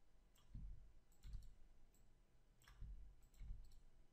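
Faint, scattered clicks of a computer keyboard and mouse, several over a few seconds, some with a soft low thump.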